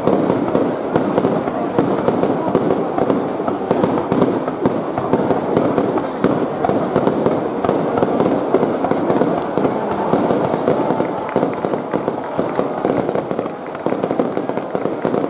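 Aerial fireworks shells bursting in a rapid barrage: a dense, continuous run of cracks and crackling, easing briefly near the end.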